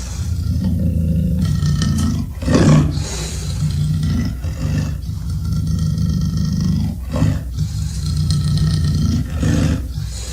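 Deep Tyrannosaurus rex creature roars from a film sound-effects track: long, low roars one after another with short breaks, the loudest and harshest about two and a half seconds in.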